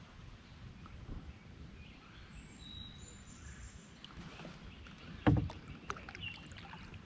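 Handling sounds in a canoe over a steady low rumble: a few light clicks from about four seconds in, then one sharp thump a little past five seconds, something knocking against the canoe.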